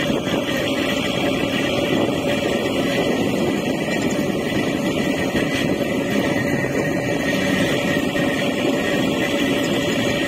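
A boat's engine running steadily underway: a constant drone with a steady hum, under an even rushing noise.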